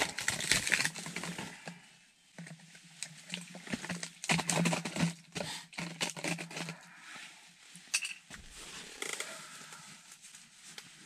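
Handling noise of a large plastic water bottle and winter clothing: rustling, crinkling plastic and scattered clicks and taps, with a low steady hum for a few seconds in the middle.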